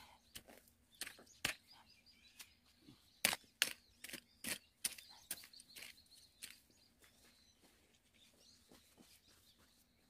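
Short-handled hoe chopping and scraping into wet soil and grass, heard as a run of irregular soft thuds and scrapes, thickest a few seconds in and thinning out later, as soil is dug up to build a paddy-field ridge.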